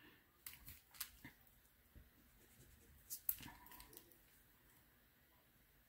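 Faint pencil strokes on drawing paper: a few short scratchy marks about half a second to a second and a half in, and again around three to four seconds in.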